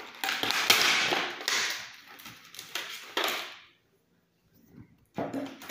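Clear plastic blister packaging crinkling and crackling as a pocket multitool is worked out of it, stopping a little past halfway, with a short rustle again near the end.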